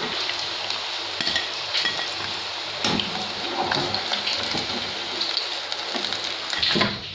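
Chicken pieces deep-frying in hot oil: a steady sizzle with scattered crackling pops. A few clinks come from the wire-mesh skimmer against the pan as the fried pieces are scooped out.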